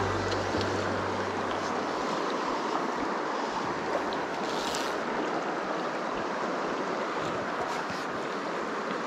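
Shallow, rocky trout creek rushing over riffles: a steady wash of flowing water.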